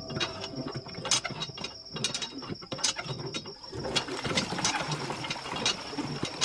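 Rusty metal hand pump being worked: a run of irregular creaking, ratcheting clicks from the handle with each stroke. About four seconds in, water starts gushing from the spout under the clicking.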